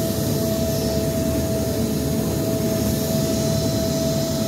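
Motorboat engine running steadily under way, a constant drone with a single steady whine over it, heard from on board.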